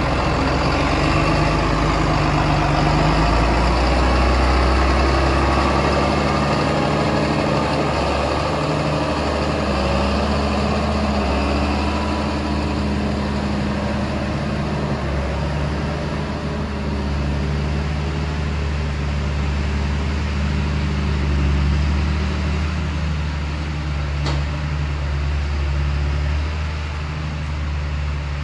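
A heavy engine running steadily, its note stepping up and down a few times.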